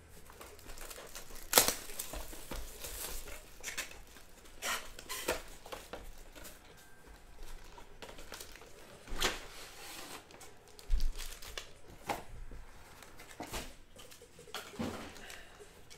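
Plastic shrink wrap crinkling and tearing as a sealed trading-card hobby box is unwrapped, followed by the cardboard box being opened and its foil card packs handled and set down. The sounds come as scattered crackles and taps, the sharpest about a second and a half in.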